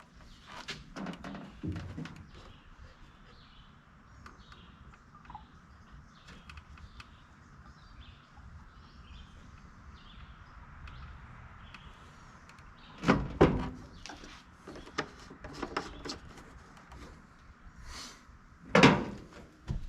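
Scattered knocks and clunks of a push mower being handled and tilted up, with two louder thumps, one about two-thirds of the way through and one near the end.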